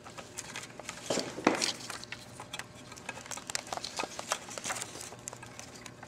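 Wiring harness and plastic connectors being handled: a string of small clicks, taps and rustles as the speaker plug is worked into its socket by feel, with a louder burst of rustling about a second in.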